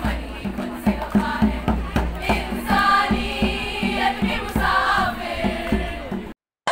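A group of students singing together in chorus over a steady hand-drum beat from a frame drum. The sound cuts off suddenly near the end.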